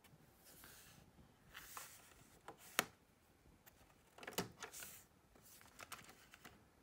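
Mechanical clicks from a mini hi-fi's cassette deck: a sharp click, then a piano-key button pressed and the spring-loaded cassette door popping open with a short clatter of clicks.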